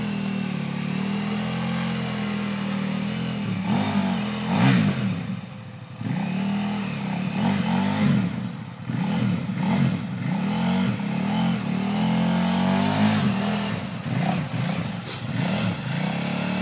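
A big adventure motorcycle's engine, an orange KTM Adventure, revving in repeated short rises and falls as the throttle is blipped over and over on a muddy track. It drops back briefly about six seconds in, then picks up again.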